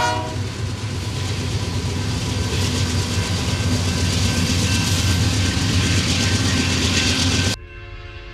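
A lashup of diesel freight locomotives passing at speed close by, engines running under load and wheels pounding the rails, just as the horn stops. About seven and a half seconds in, the sound cuts off abruptly to a much quieter scene with a faint, distant train horn.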